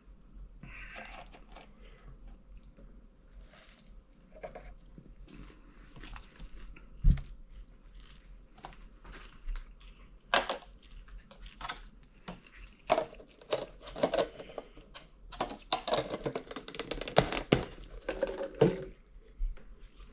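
Popcorn being chewed and crunched, with crackling, rustling and scattered clicks that grow busiest in the last few seconds. A single sharp knock about seven seconds in is the loudest sound.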